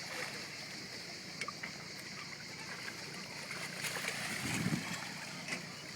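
Water lapping and trickling against a small boat, with a few light clicks and knocks and a brief slosh about four and a half seconds in.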